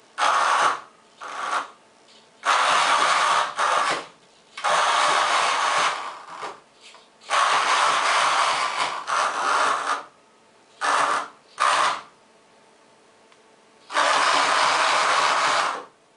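Custom metal drivetrain of a kinetic hyena sculpture whirring in stop-start bursts as it moves, some bursts under a second and others a few seconds long, with short pauses between.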